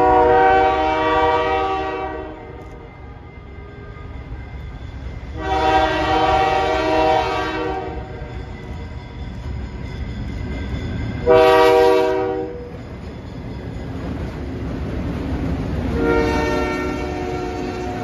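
Diesel locomotive air horn on an Alco/MLW-powered freight sounding the grade-crossing signal: two long blasts, one short, then a long one. Under it the diesel engines rumble steadily as the train draws near.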